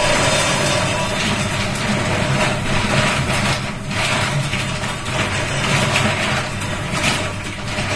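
Steady machine hum with a loud, even hiss over it, running without break.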